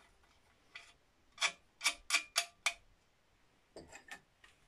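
Short, sharp clicks of screws and fixings being handled and fitted into the bolt holes of a metal suspension turret bracket. There are about six quick clicks in little more than a second, then a few fainter ones near the end.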